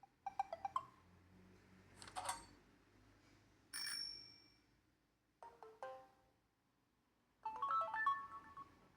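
A Samsung Wave 533 mobile phone plays a run of its short built-in alert and message tones: about five brief chimes and jingles, each followed by a short pause. The last, a quick run of notes near the end, is the loudest.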